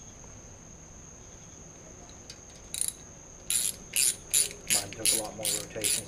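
Ratchet wrench clicking in repeated strokes, about three a second, starting about three and a half seconds in after a single short burst. A Ford 4.6 2V SOHC V8 is being turned over by hand at the crankshaft to check that the new timing chains stay lined up. A steady high cricket chirr runs underneath throughout.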